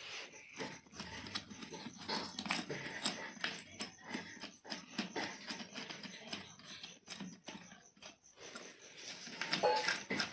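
Irregular clicks, knocks and rattles of hands handling a stand fan's parts as it is taken apart.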